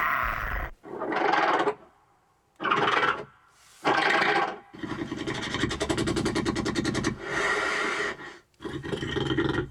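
Designed Velociraptor vocal sound effects: three short calls, then a long rattling call of about three and a half seconds, then another call near the end. These are the calm raptor vocals used when the raptors are comfortable with their handler.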